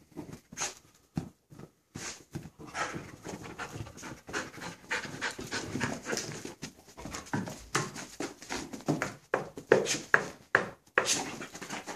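Yellow Labrador retriever breathing in quick, short pulses, panting and sniffing as she works a sofa's cushions while searching for bed bugs.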